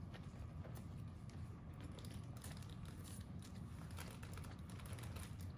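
Close-miked chewing of a mouthful of braised pork meatball: many small, soft wet mouth clicks over a low steady hum.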